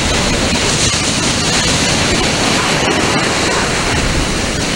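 Surf washing up the beach: a steady rush of breaking whitewash over the sand.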